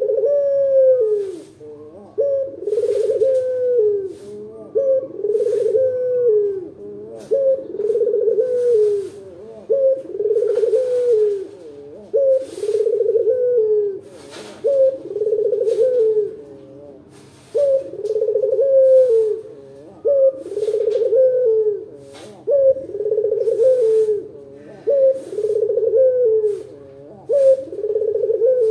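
Ringneck dove (puter) cooing: the deep 'kuk-geru' call repeated over and over, each wavering, falling coo following the last after a short gap.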